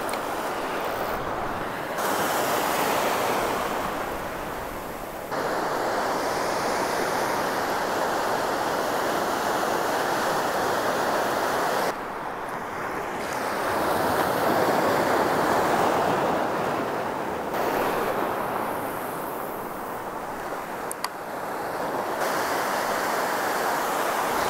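Ocean surf breaking and washing up the beach, a continuous rush of water that swells and fades. Its level jumps abruptly several times.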